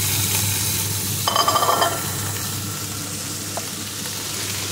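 Chicken and rabbit pieces sizzling as they fry in olive oil in an electric paella pan, with a short scrape of a utensil against the pan about a second and a half in.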